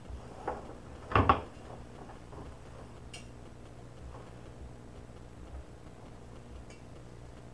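A quick cluster of hard knocks about a second in, with a smaller click just before, as a metal bathroom faucet and a ceramic sink are handled. A steady low hum runs underneath.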